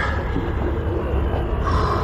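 Low, steady rumbling drone under a hissing haze, with a higher held tone coming in near the end: dark background ambience of a dramatized audiobook.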